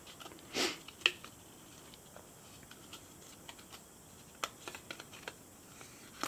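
Faint, scattered small clicks and taps of a plastic-framed memory card being handled, its circuit board worked out of its black plastic carrier, with a short soft rub under a second in and a cluster of clicks past the middle.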